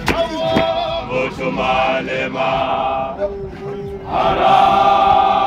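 Men's choir of ZCC mokhukhu dancers chanting and singing together in harmony, with two sharp knocks near the start. A louder, higher-pitched sung part comes in about four seconds in.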